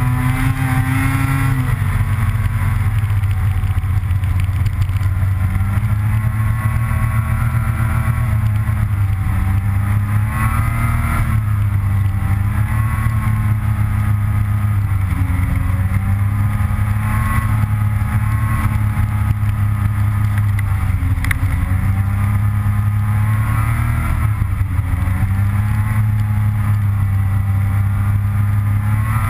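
Snowmobile engine running at trail speed, its pitch rising and falling over and over as the throttle is opened and eased.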